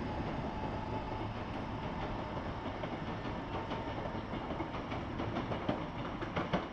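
A train running on the rails: a steady rumble with wheel clicks over rail joints, which come thicker from about four and a half seconds in.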